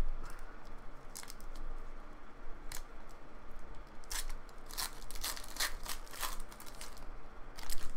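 Foil trading-card pack wrappers being torn open and crinkled by hand, in a series of short sharp rips and crackles. They come thickest from about four to six and a half seconds in, and once more near the end.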